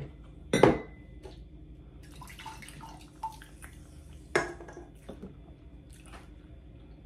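Knocks and clinks of tableware being handled as a cup is reached for and picked up. The loudest knock comes about half a second in and a second one just past four seconds, with a few lighter clinks between.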